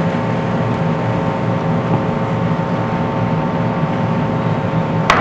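A steady mechanical drone holding several fixed tones, like an engine or other machinery running.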